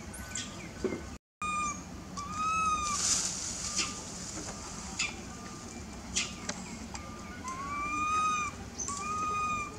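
Baby macaque crying: short, arched whimpering calls, one after another about a second apart, then a pause of a few seconds before longer calls resume near the end. A few sharp clicks fall between the calls.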